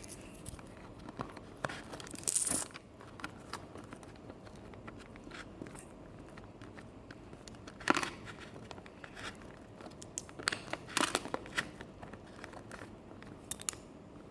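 Paper and cardboard being handled: scattered rustling and crinkling with light taps and clicks, and a louder crinkle about two seconds in.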